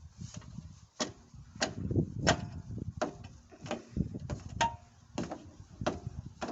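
A run of sharp clicks and knocks, roughly one every two-thirds of a second, over low rumbling handling noise.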